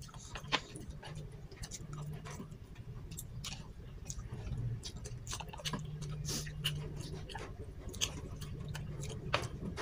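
Close-up eating sounds: chewing and mouth noises, with many short sharp clicks and taps scattered throughout and a low hum underneath.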